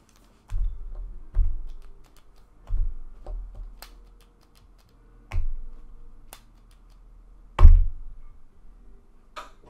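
A string of irregular dull thumps and sharp clicks, about seven in all, from things being knocked or set down on a desk close to the microphone. The loudest thump comes about three-quarters of the way through.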